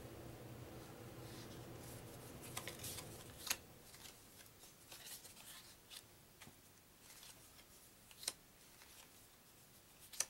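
Paper trivia cards being handled and slid off a stack by hand: soft rustling with a few sharp card snaps, the loudest about three and a half seconds and eight seconds in.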